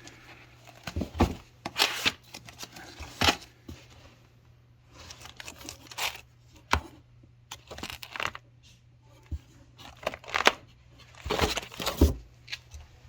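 Irregular bursts of rustling, crinkling and clattering, as of objects being picked up and handled, about a dozen sharp noises scattered through a few seconds with quieter handling between them.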